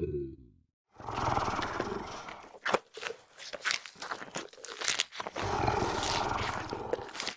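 Dinosaur sound effects: a roar fades out at the start, then after a brief silence come rough growls and snarls, with a run of sharp clicks and snaps in the middle.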